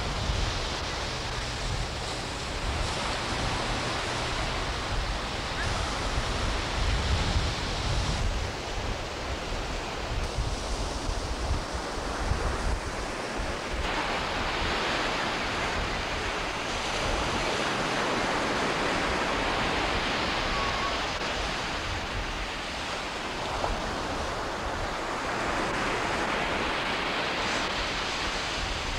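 Ocean surf breaking and washing up the beach, a steady rush of noise, with wind buffeting the camcorder microphone, mostly in the first half.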